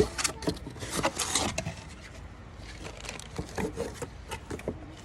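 Cardboard packaging of a toolbox being handled and opened: rubbing and scraping in the first second or so, then scattered light knocks and clicks.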